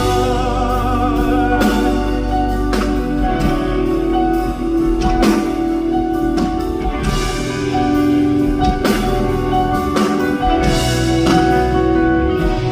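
Live band music in a pop ballad with no sung words: sustained chords and held notes over regular drum hits.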